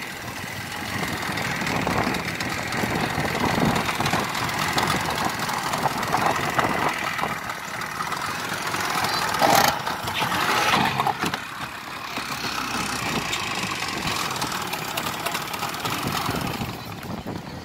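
Motorboat engine running, with water splashing and wind noise on the microphone; a louder rush of water or wind about nine and a half seconds in.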